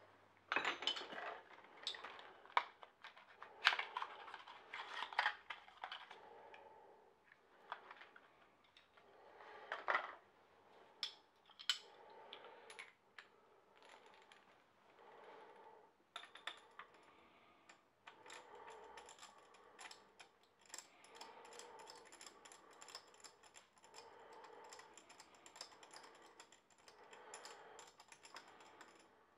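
Quiet metallic clicks and clinks of hand tools, a spanner and a spark plug socket, being handled and worked at a motorcycle cylinder head during a spark plug change. The clicks come scattered at first and turn into a denser run of light clicking in the second half.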